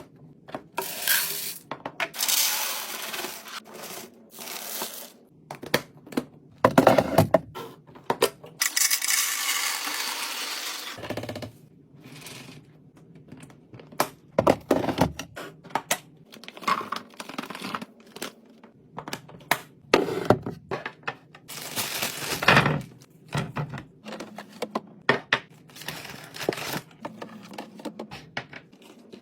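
Drinks and snacks being restocked by hand: cans and bottles clinking and clattering as they are set in place, and plastic packaging rustling and tearing, with a few longer stretches of rustling among the sharp knocks.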